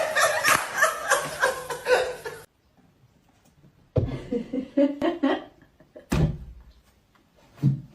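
People laughing, with a pause in the middle and a short knock about six seconds in.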